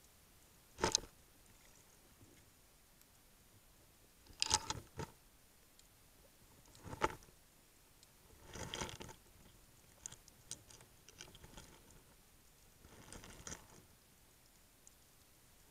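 Octopus lure rig knocking and scraping on seabed rocks, heard underwater through an action camera's waterproof case. There are sharp knocks about one, four and a half and seven seconds in, then softer rough scraping and ticking.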